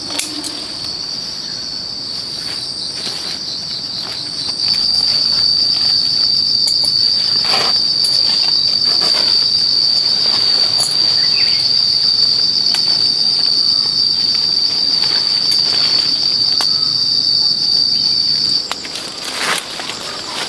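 A shrill insect buzz, starting as quick pulses and swelling about four seconds in into a loud, steady, high drone that cuts off suddenly near the end. A few faint knocks and rustles sound beneath it.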